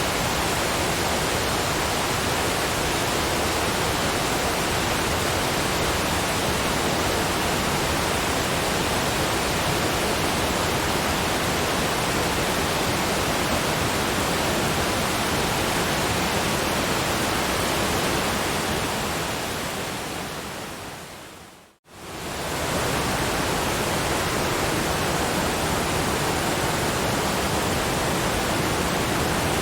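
Steady, even rush of a waterfall. About eighteen seconds in it fades away over a few seconds to a moment of silence, then comes straight back at full level, as at the seam of a looped recording.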